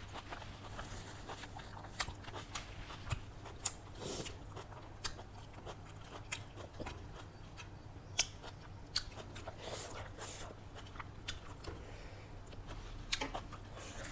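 Close-miked eating: chewing and wet mouth clicks, with occasional crunches, in an irregular rhythm, over a faint steady low hum.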